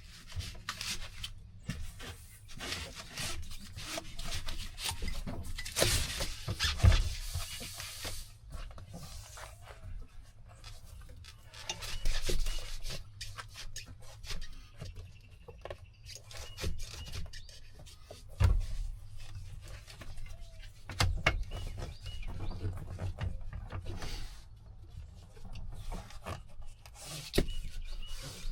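Irregular rubbing, scraping and scuffing with scattered knocks and clicks, as a ribbed rubber floor mat is handled and worked into place in a truck cab.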